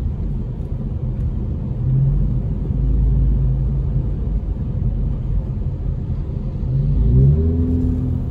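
Car driving on a wet road, heard from inside the cabin: a steady low rumble of engine and tyres, with a brief rising engine note about seven seconds in.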